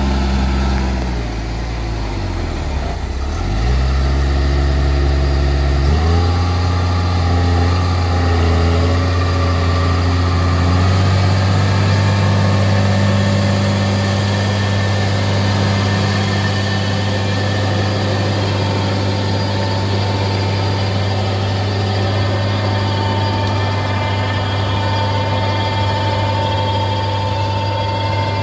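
Large New Holland tractor's diesel engine running as it works the field with a power harrow and seed drill behind it. Engine speed dips and recovers in the first few seconds, picks up again, then holds steady.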